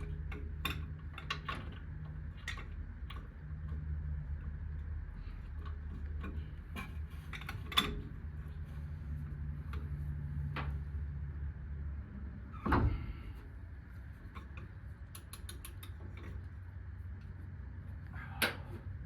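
Hand ratchet clicking in short runs and metal tools knocking against the suspension while a ball-joint nut is worked loose, with three louder clanks spread through, over a steady low hum.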